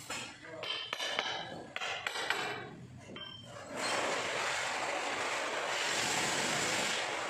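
A hammer strikes a steel chisel wedged under a granite floor tile several times over the first three seconds, each hit a sharp metallic clink with a short ring. From about four seconds in, a steady, even rushing noise takes over.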